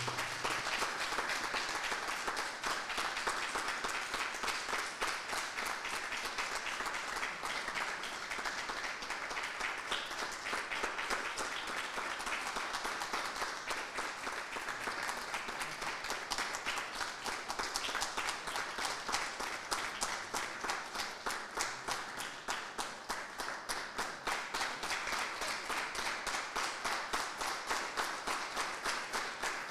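Audience applauding with many hand claps; near the end the clapping falls into a steady, even beat.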